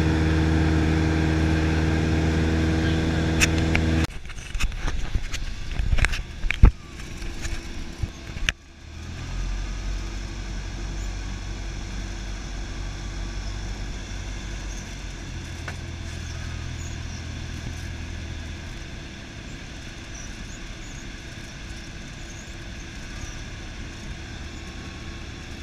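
Cessna 172's piston engine and propeller droning steadily. About four seconds in, the drone cuts off abruptly. A few sharp clicks and knocks follow, then a quieter, lower engine drone as the plane descends toward the runway.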